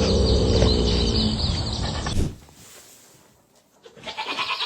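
Birds chirping over a steady low hum. After about two seconds the sound drops quieter, and near the end an animal bleats briefly.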